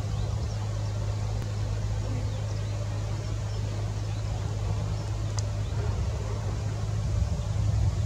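Steady low background rumble, with a few faint high chirps near the start.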